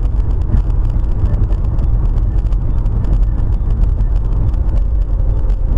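Loud, steady low road noise of a car driving at highway speed, picked up by a dashcam.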